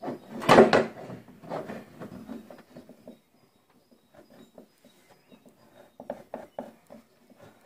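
Light knocks and rubbing from a PDR knockdown stick tapping and smoothing a car's body panel. There is a louder knock about half a second in, a quiet spell in the middle, and a run of short ticks near the end.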